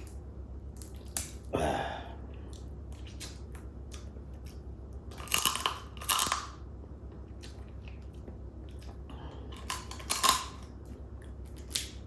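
Close-up eating of whole crab: chewing with many small cracks and clicks of shell being bitten through. There are a few louder crunches about a second and a half in, around five to six seconds in, and near ten seconds.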